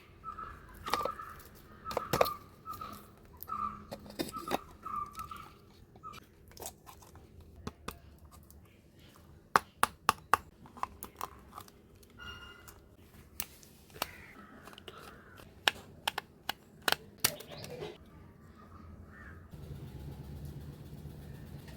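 A run of sharp clicks and knocks of small hard objects being handled, with short repeated squeaks in the first few seconds. A low steady hum starts near the end.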